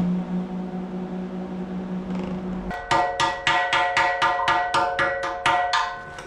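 A steady low electrical hum, which stops about three seconds in. A quick, even percussive beat of about four strokes a second then follows over sustained tones, like background music.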